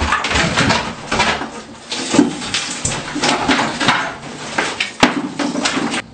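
Irregular knocking, banging and scraping as a fiberglass tub-shower unit is torn out.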